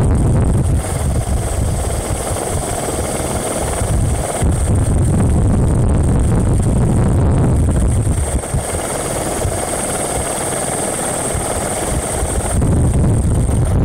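Helicopter rotor and engine running steadily, heard from aboard the helicopter: a loud low rumble with a thin high whine above it.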